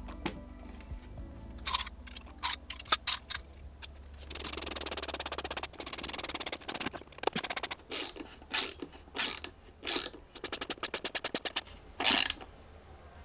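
Cordless drill driving short black wood screws into the mounting plates of flip-up hinges: a few handling clicks, then short runs of the drill's motor, with a rapid run of clicks near the end as a screw seats.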